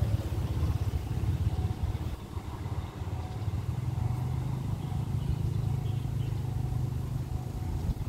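A low, steady engine drone with wind buffeting the microphone.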